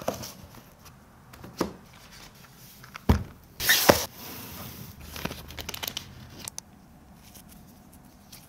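Unboxing handling noise: small cardboard boxes knocking down on a wooden table a few times, a short loud rustle of packaging about halfway through, then light crinkling of plastic packaging that dies away near the end.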